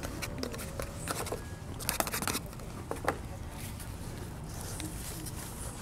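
Food being handled and eaten: scattered crinkles and clicks, densest about two seconds in, over a steady low background hum.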